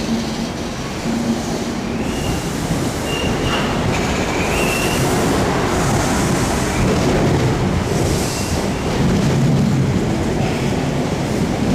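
Passenger train running past along the platform: a steady rumble and clatter of wheels on the rails, with a few brief, faint high-pitched wheel squeals.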